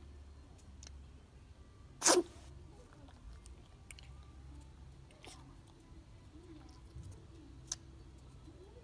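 French Bulldog puppy sneezing once, a short loud burst about two seconds in, amid faint clicks of it chewing dry kibble.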